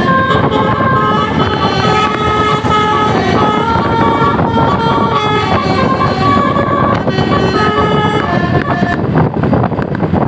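Tour bus's basuri horn, an electric multi-tone 'telolet' musical horn, playing a tune of held notes that step from pitch to pitch without a break.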